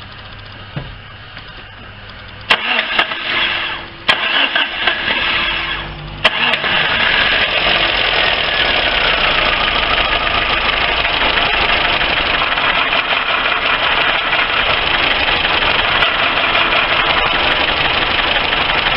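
Lifan car's petrol engine cranked on the starter in two uneven attempts with a short break between, catching about six seconds in and then running steadily. The engine has low compression and heavy wear.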